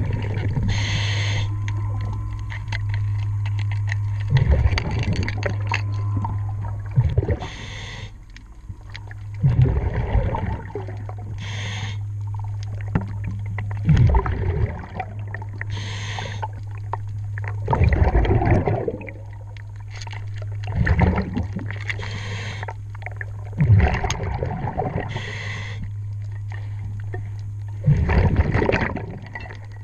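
A scuba diver breathing through a regulator underwater: a short hiss of inhalation, then a louder rush of exhaust bubbles, repeating about every three to four seconds. A steady low hum runs under it.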